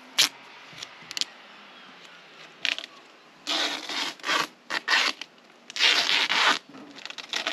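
Black tape being pulled off its roll in several ripping pulls of up to about a second each, mostly in the second half, as it is wrapped around a corrugated plastic drain pipe joint.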